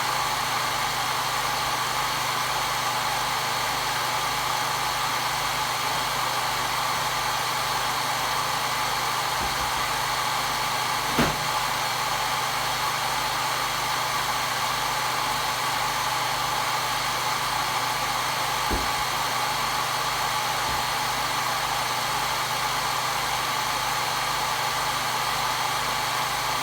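Electric hair dryer running steadily, a constant whooshing fan-and-motor hum used as white noise for soothing a crying baby. Two faint clicks, about eleven and nineteen seconds in.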